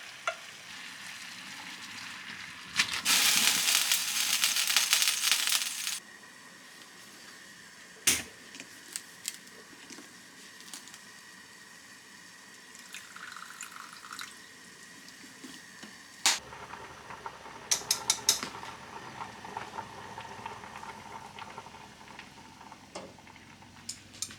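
Kitchen sounds: water runs from a tap for about three seconds, then light clicks and knocks of dishes and utensils come at scattered moments, a few of them sharper.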